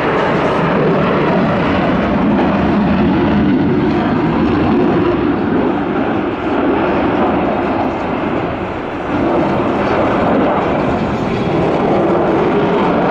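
Sukhoi Su-35's twin Saturn AL-41F1S turbofan jet engines running loud during a display flight, a steady jet rumble that dips briefly about eight to nine seconds in.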